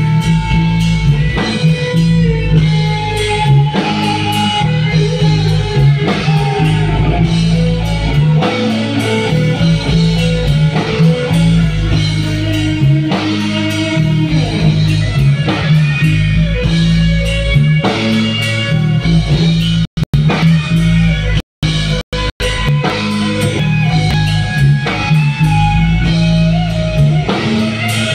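Rock band playing live and loud: electric guitar over bass guitar and drum kit. The sound cuts out briefly several times about twenty seconds in.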